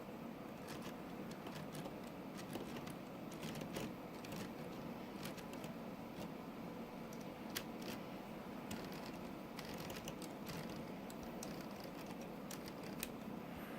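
Light, irregular plastic clicks and ticks from Lego Technic gears and parts being turned and handled by hand, over a steady faint background hiss.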